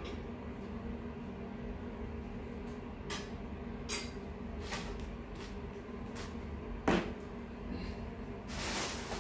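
Things being handled on a TV stand: several light clicks and knocks, the loudest about seven seconds in, and a rustle near the end, over a steady low hum.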